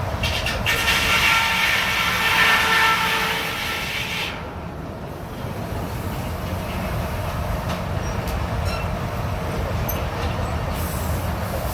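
Old-fashioned circular sawmill blade cutting through a log with a loud, high-pitched whine that stops suddenly about four seconds in. A steady low mechanical rumble continues after the cut, with scattered clicks and clatter.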